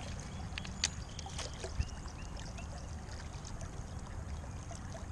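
Stream water running steadily around the wading angler, with a few faint clicks and taps about one to two seconds in and a short run of faint high chirps just after.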